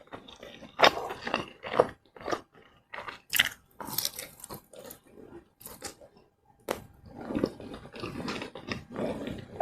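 Close-miked eating: a person biting and chewing food, with irregular crisp crunches, sharpest about three to four seconds in, then softer, steadier wet chewing near the end.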